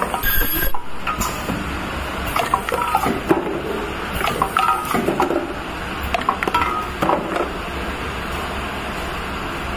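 Table-top ultrasonic tube filling and sealing machine running with a steady hum. Bursts of mechanical clicking and clatter come about every two seconds, then stop in the last couple of seconds, leaving only the steady running noise.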